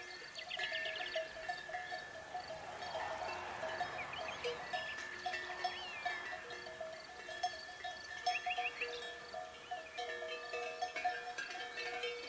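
Bells on grazing livestock clinking irregularly, with small birds chirping and trilling.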